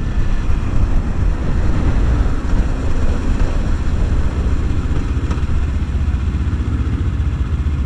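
Wind buffeting the microphone of a riding Kawasaki Ninja 300 sport bike, a steady low rumble with the engine's drone underneath as the bike slows down.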